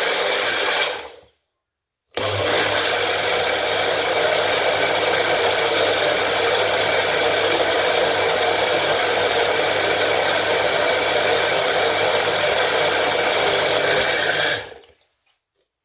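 Bullet-style personal blender motor running at full speed, blending carrots, ginger and lemon with water into juice. It winds down about a second in, starts again after a short pause, and runs steadily for about twelve seconds before winding down near the end.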